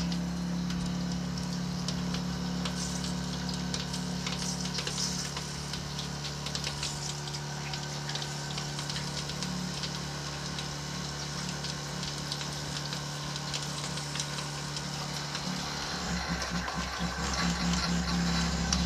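Electric water pump humming steadily while water runs from the faucet through the homemade copper-coil heater. The pump's hum changes pitch about 16 seconds in.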